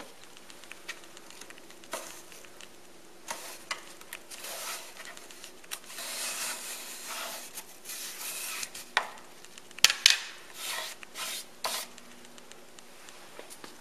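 Hands pulling the round cloth grille off a Polk Audio PSW202 subwoofer cabinet: rubbing and scraping against the cabinet, then sharp pops about ten seconds in as the grille comes free of its mounting sockets.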